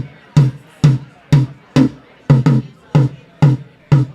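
First rack tom of a drum kit struck repeatedly for a sound check, about two hits a second with occasional quick double strokes, each hit a pitched, booming ring that dies away fast.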